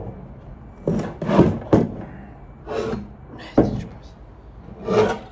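Voices talking, with a few sharp knocks from parts being handled: about one and a half to two seconds in, and again about three and a half seconds in.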